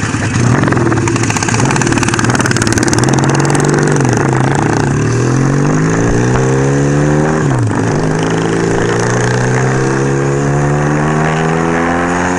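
A 1975 Kawasaki KZ400 parallel-twin motorcycle engine pulling away and accelerating, its pitch climbing steadily. It drops sharply at an upshift about seven and a half seconds in, then climbs again. Wind rushes over the bike-mounted microphone throughout.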